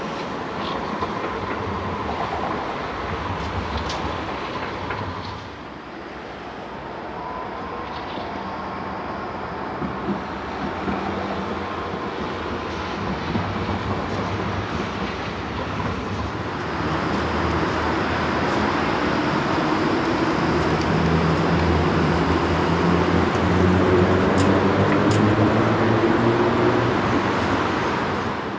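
Electric trams running on street track: steady wheel-on-rail rolling noise with a few sharp clicks. About two-thirds of the way through it grows louder, and a motor whine rises in pitch as a tram picks up speed.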